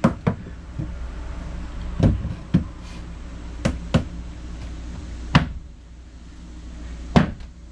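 Hammer blows knocking a snug wooden support board into place in a pine bed frame: about seven sharp knocks at uneven intervals, two of them in quick pairs.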